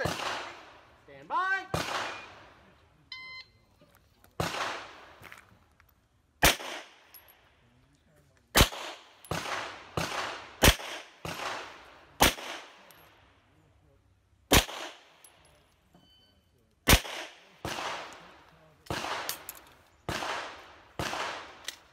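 9mm Smith & Wesson M&P M2.0 pistol shots, fired singly at an uneven pace, mostly a second or two apart with a few quicker pairs. Each shot is a sharp crack with a short echo.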